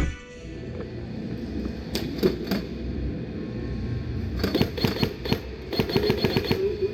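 Airsoft gunfire: three single shots about two seconds in, then two short bursts of rapid clicking shots, about ten a second, in the second half.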